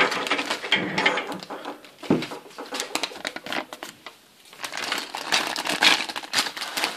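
Thin clear plastic bags crinkling and rustling as they are handled, with the small hard plastic toy parts inside clicking and rattling. There is a short lull about four seconds in.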